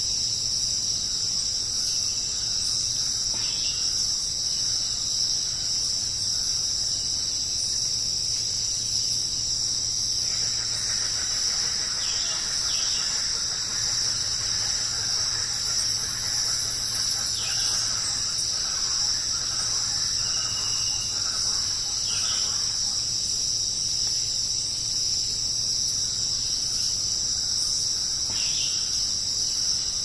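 A dense insect chorus: a steady, unbroken, high-pitched drone, with a few faint short chirps over it now and then.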